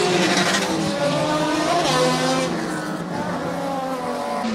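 Several autocross race cars' engines revving hard on a dirt track, their pitch rising and falling as they accelerate and back off through the corners.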